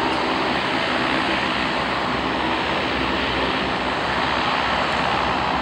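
Lockheed C-130H-30 Hercules taxiing, its four Allison T56 turboprop engines running at low power: a steady propeller drone with turbine noise above it.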